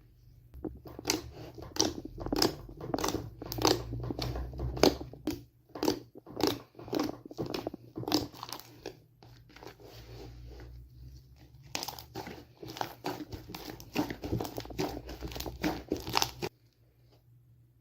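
Slime being squeezed and squished by hand, making a fast run of sharp pops and clicks that eases off for a couple of seconds midway and cuts off suddenly near the end.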